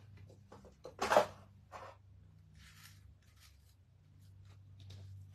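Someone rummaging through craft supplies: scattered light clicks and rustles, with one louder knock about a second in, over a low steady hum.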